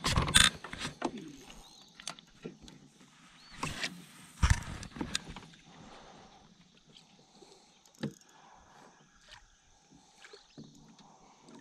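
Scattered knocks and bumps of gear and handling on a plastic fishing kayak, loudest near the start and again around four to five seconds in, with quiet water between them.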